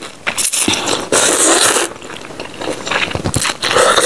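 Close-miked slurping of rice vermicelli noodles in spicy broth: several long, loud, noisy slurps drawn in one after another, with short pauses between them.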